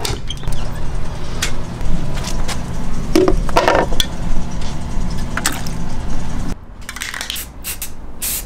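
Clicks and knocks from handling headlight parts over a steady low hum. Near the end come short hissing bursts of an aerosol spray-paint can.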